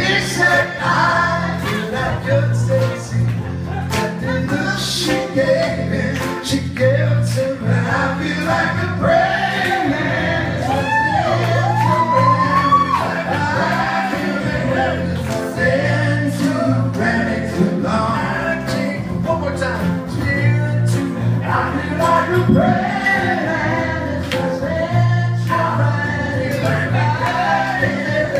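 Live band playing a song with male and female voices singing together over a steady run of bass notes and drum hits.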